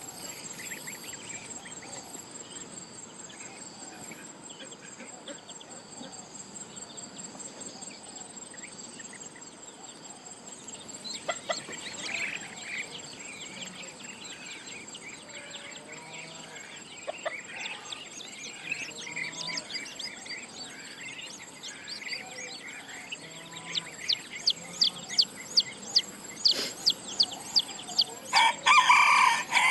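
Chickens clucking and calling over a steady high insect chirring. A run of sharp, evenly spaced clicks, about two a second, comes in over the last few seconds.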